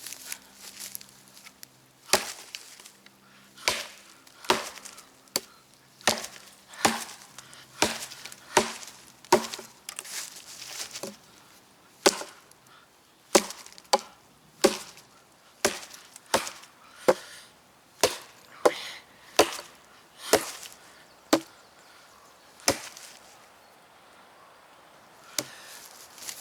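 A hardened-steel axe chopping into a piece of wood: about two dozen sharp blows, roughly one a second, with a short pause near the end.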